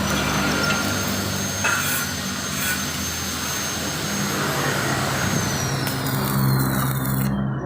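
A motor running steadily with a high whine that falls in pitch over the last couple of seconds as it winds down.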